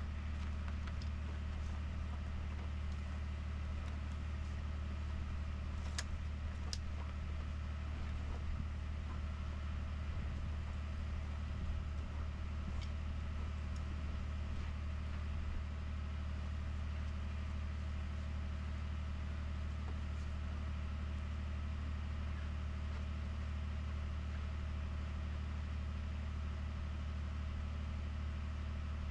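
Ford F-150 PowerBoost's 3.5-litre twin-turbo V6 idling steadily after a remote cold start at about −21 °C, with the gas engine running to warm up before the truck drops into hybrid mode. A couple of sharp clicks about six seconds in.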